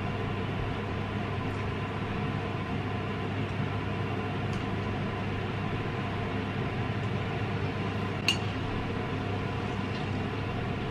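Steady background hum in a small kitchen, with a few light clinks of a metal spoon and fork on a plate as fish is picked apart, one sharper clink about eight seconds in.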